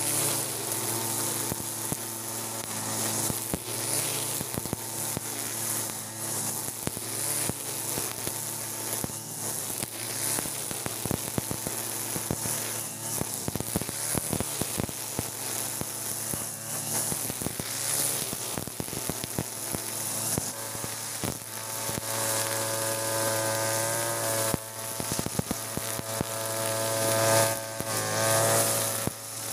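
Backpack TB43 two-stroke brush cutter running at cutting speed, its trimmer head whipping 2.4 mm nylon line through grass with a steady hiss. The engine note strengthens and wavers in pitch over the last several seconds.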